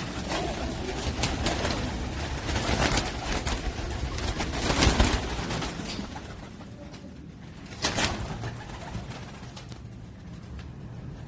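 Pigeons cooing, mixed with scattered clicks and rustling. There is a louder burst of noise about five seconds in and a single sharp click near eight seconds.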